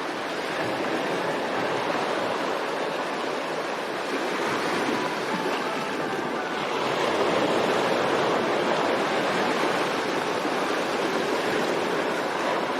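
Steady rushing water noise that swells slightly about halfway through.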